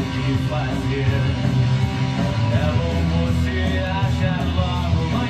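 Rock music with guitar playing, dense and steady.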